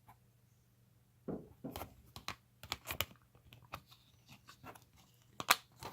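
Rustling and a series of sharp plastic clicks as a Blu-ray case and its paper cover insert are handled, starting about a second in.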